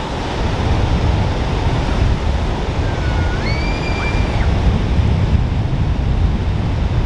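Ocean surf washing in steadily over a flat sandy beach, with wind rumbling on the microphone. A faint, high, drawn-out call rises and holds for about a second, midway through.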